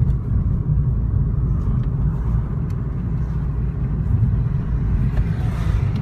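Car driving, heard from inside the cabin: a steady low rumble of engine and road noise.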